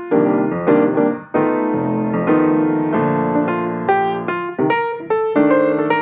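Solo piano music: notes and chords struck in quick succession, each ringing and fading.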